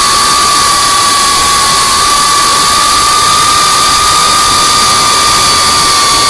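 FPV quadcopter's brushless motors and propellers whining at a steady high pitch under a loud hiss, heard from the camera riding on the drone. The pitch steps up slightly about two seconds in.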